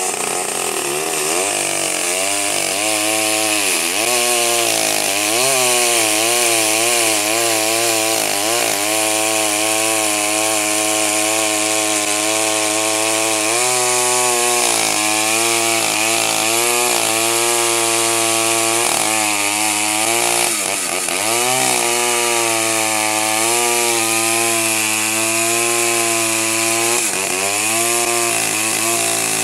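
Two-stroke chainsaw running at high revs while cutting through a large log. Its pitch wavers and dips sharply a few times under load, then recovers.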